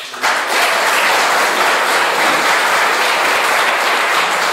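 Audience applauding, a dense steady clapping that swells in just after the start and keeps going.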